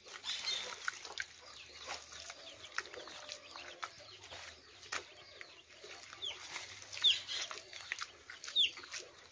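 Hands pressing and patting wet mud into a wooden adobe mould, a run of soft slaps and squelches. Short bird calls falling in pitch come a few times in the second half and are the loudest sounds.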